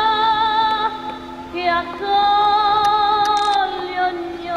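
Music with a woman's voice singing long held notes with a slight vibrato, changing to a new note about two seconds in.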